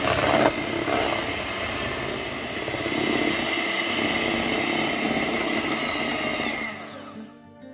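Electric hand mixer running at a steady speed with a high whine, its beaters creaming butter and margarine in a stainless steel bowl until pale and fluffy. The mixer stops near the end.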